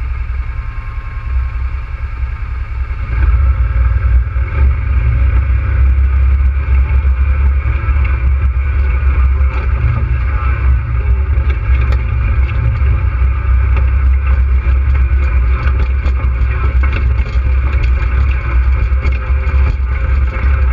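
ATV engine running as the quad rides over rock ledges and dirt, with a heavy low rumble. It opens up and gets louder about three seconds in, then holds steady.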